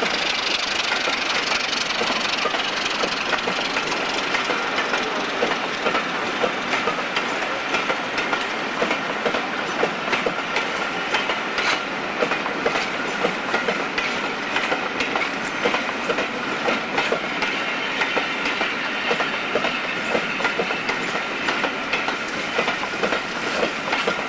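Passenger coaches rolling slowly over railway points and crossings, their wheels clicking and clattering irregularly over the rail joints beneath a steady rumble.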